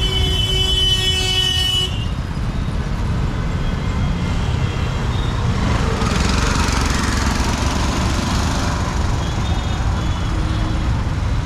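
Street traffic: a vehicle horn sounds one held note that cuts off about two seconds in, over a steady low rumble of engines. A noisy hiss swells and fades between about six and eight seconds.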